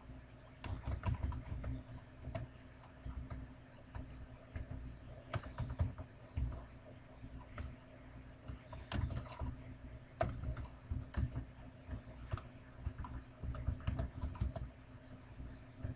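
Typing on a computer keyboard, keystrokes coming in short irregular bursts with pauses between them.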